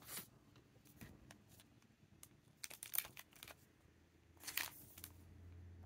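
Faint rustling and crinkling of plastic packaging and a paper notebook being handled, in a few short scattered sounds, the loudest about three seconds in.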